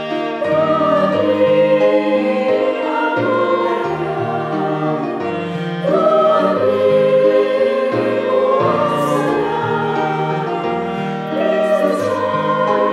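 A church choir of mostly women's voices sings a hymn in parts, accompanied by cello and violin. New phrases begin about half a second in, about six seconds in and near the end.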